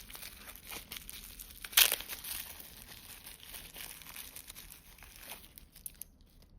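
Plastic packaging crinkling as it is handled, with one louder crackle about two seconds in; it dies away near the end.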